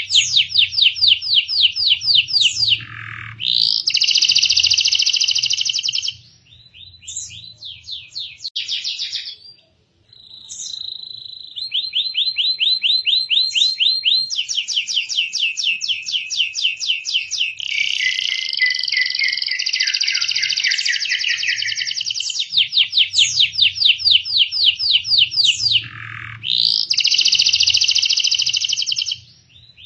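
Canary singing: long fast trills of rapidly repeated high notes, changing from one roll to the next, with short pauses and a brief break about ten seconds in.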